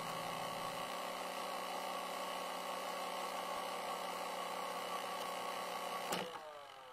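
Steady hum made of several held tones, ending about six seconds in with a few short falling glides, followed by a sharp click near the end.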